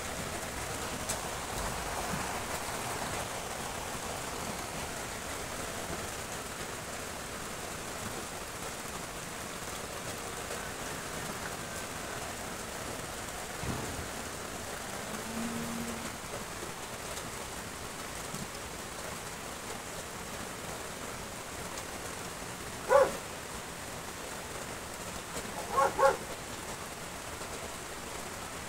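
Steady rain hiss. A dog barks once about three-quarters of the way through, then twice in quick succession a few seconds later, loud over the rain.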